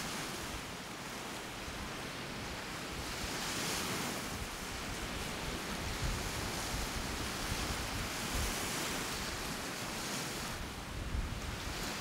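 Small waves breaking and washing up on a sandy beach, swelling and easing in slow surges, with gusts of wind buffeting the microphone.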